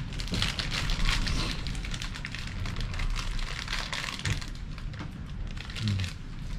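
Dense, irregular crackling and rustling throughout, with two short low knocks in the second half.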